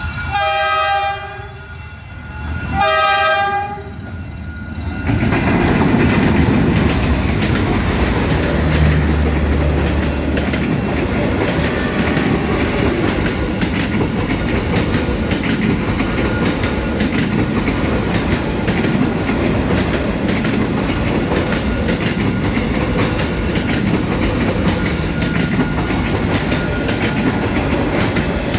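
D19E diesel-electric locomotive sounding its horn in two blasts, each about a second long, as it nears the level crossing. Then the train passes: a low engine rumble, followed by the steady rumble and clatter of passenger coaches rolling over the rails.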